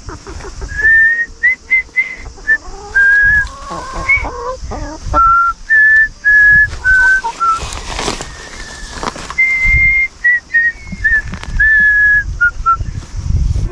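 Human whistling: a string of short, clear notes, mostly held level, with a few small glides, whistled as a call to a black kite.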